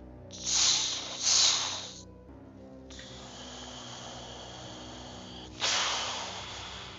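Background music with loud hissing noise over it: two short bursts in the first two seconds, a steadier hiss from about three seconds in, and a louder burst near the end that fades away.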